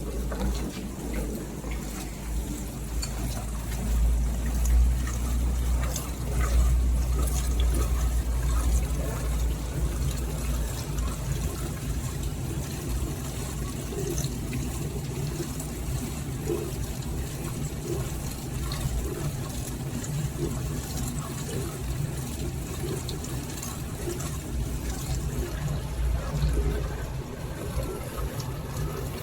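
Beko DFN05211 dishwasher running, with water rushing and splashing inside it over a low steady hum.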